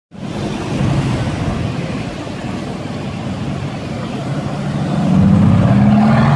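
Mercedes-AMG GT's 4.0-litre twin-turbo V8 driving slowly past in traffic, its engine note growing louder as it comes close about five seconds in.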